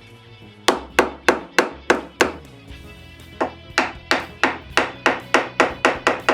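Hand plane taking quick, short strokes across a wooden box lid, about three a second, with a brief pause a little past two seconds in. Background music plays steadily underneath.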